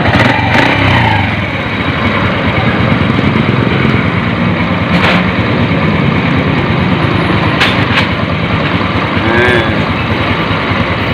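Freshly rebuilt Honda Supreme motorcycle's air-cooled single-cylinder four-stroke engine running steadily just after starting, with a few sharp clicks.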